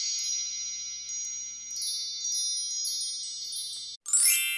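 High, tinkling wind chimes with long ringing tones, lightly struck again every half second or so. About four seconds in, a quick upward sweep of chimes rises and rings out.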